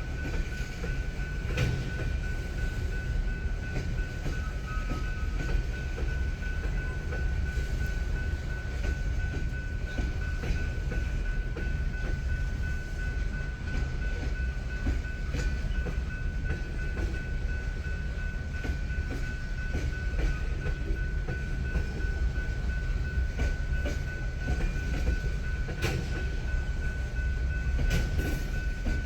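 Freight train cars rolling past a grade crossing: a steady low rumble with irregular wheel clicks over rail joints. A steady high tone runs throughout.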